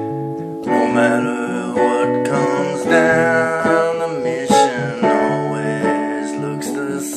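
Acoustic guitar strumming, the chords changing every second or two, in an instrumental passage of a slow song.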